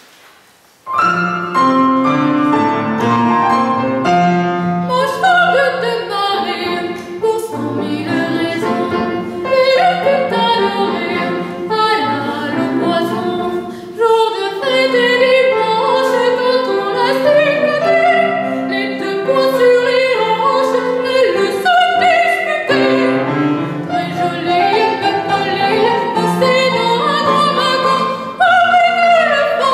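A young female classical soprano sings an operetta aria in full operatic voice with piano accompaniment; the piano comes in about a second in.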